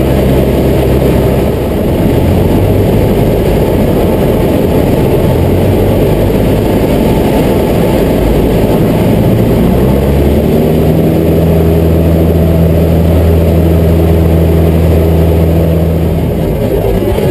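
A light single-engine plane's engine and propeller heard from inside the cockpit in flight: a loud, steady drone whose note shifts slightly about ten seconds in.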